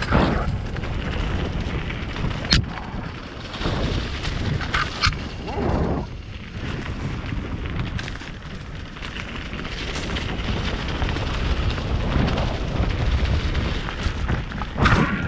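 Mountain bike riding fast down a dirt and gravel trail: wind buffeting the camera microphone with tyre and trail rumble, and a few sharp knocks from the bike over bumps.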